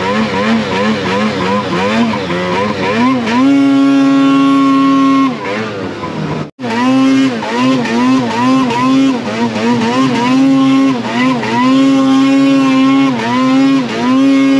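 Snowmobile engine running under a rider's throttle, its pitch swinging up and down in quick pulses and held at steady high revs for a second or two at a time, several times. The sound breaks off sharply for a split second about six and a half seconds in, then picks up again.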